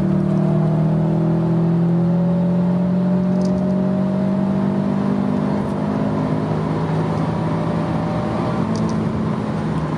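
Subaru Impreza WRX STI's turbocharged flat-four engine pulling at motorway speed, heard from inside the cabin with tyre and road noise. The engine note rises gently for about the first half and then holds steady. It is a test drive after the misfire was fixed, and the car is said to run perfectly now.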